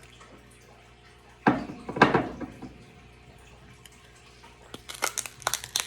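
A person sipping and swallowing a mouthful of bourbon, two short loud gulps about a second and a half in. Near the end comes a quick run of sharp clicks and taps.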